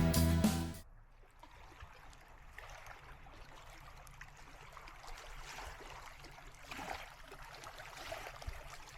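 Background music with a steady beat fading out about a second in, followed by faint hiss with soft irregular ticks.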